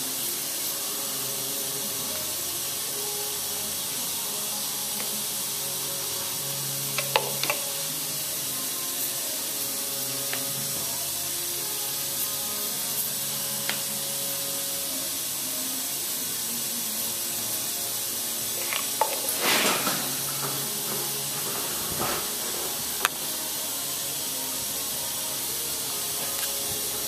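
A steady hiss with a few light knocks, and a short rustle of handling about twenty seconds in.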